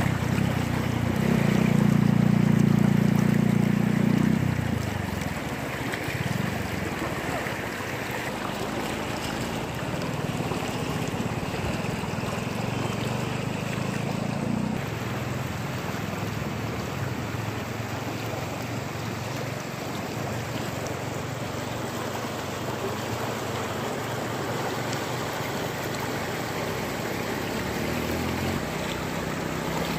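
Fast-flowing, silty river in flood rushing and churning through standing waves. A low, steady motor-like hum runs under the water, loudest in the first few seconds and dropping away about halfway through.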